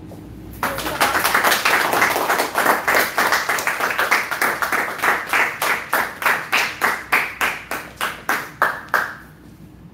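Small audience applauding: many hands clap at once from about half a second in, then the clapping thins to a few separate, evenly spaced claps that die away near the end.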